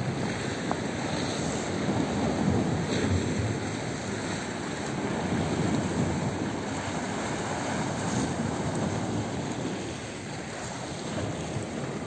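Small waves of a calm sea washing against the boulders of a breakwater, in a steady, slowly swelling rush, with wind buffeting the microphone.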